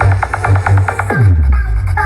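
Electronic dance music played loud through a carnival sound system under test. A heavy bass beat pulses steadily, then a little over a second in a falling bass sweep drops into a new section.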